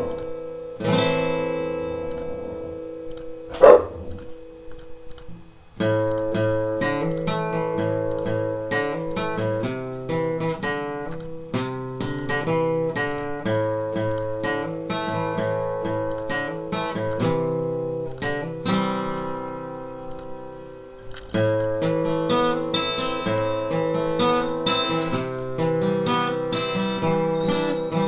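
Acoustic guitar music: a strummed chord rings out about a second in, then plucked notes and chords run from about six seconds on. One short, loud sound comes just before four seconds.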